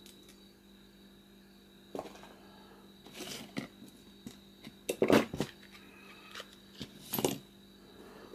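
Packaging being handled as a box of tools is unpacked: a sharp click about two seconds in, then bursts of rustling and knocking about three, five and seven seconds in, the one near five seconds the loudest, over a faint steady hum.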